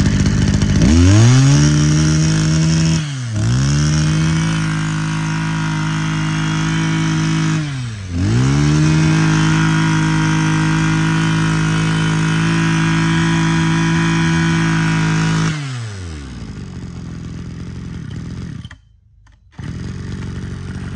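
Mitsubishi TL26 26cc two-stroke brush-cutter engine revved up to high speed and held there. The revs dip and climb back twice, then fall to a low idle about fifteen seconds in.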